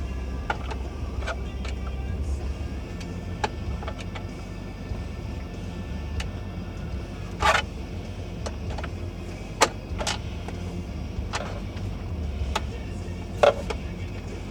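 Scattered clicks and sharp knocks of a screwdriver, screws and plastic parts being handled, four louder knocks standing out, over a low steady rumble.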